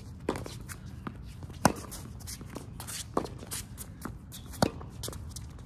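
Tennis rally: a ball struck back and forth by rackets, four hits about one and a half seconds apart, every other one louder, with quick footsteps and shoe scuffs on the court in between.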